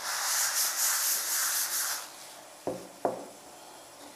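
Paper tissue rubbing against a glass jar, wiping off spilled oil: a scratchy rubbing that pulses a few times a second and stops about halfway. Two short knocks follow close together.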